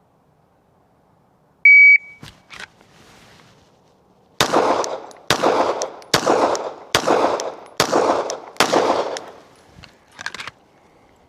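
A shot timer gives one loud, sharp start beep. About two and a half seconds later, a 9mm Glock 17 pistol with a competition trigger fires six shots, a little under a second apart, drawn from the holster.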